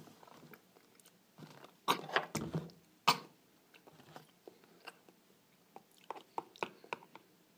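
Ketchup bottle handled close to the microphone as it is opened and tipped up to pour. A cluster of knocks and clicks comes about two seconds in and a single sharp click at about three seconds, then softer scattered ticks.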